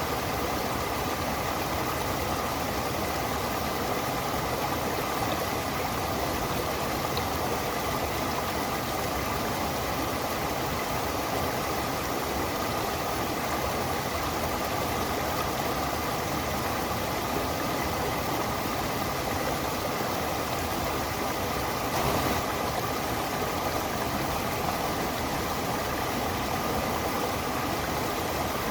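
Stream water running steadily, an even rushing noise with no breaks.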